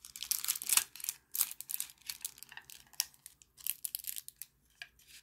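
Plastic packaging crinkling and rustling in the hands, in quick irregular crackles with several sharper snaps.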